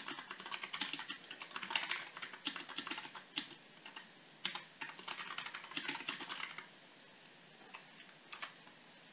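Typing on a computer keyboard: quick runs of keystrokes that thin out to a couple of single key presses near the end.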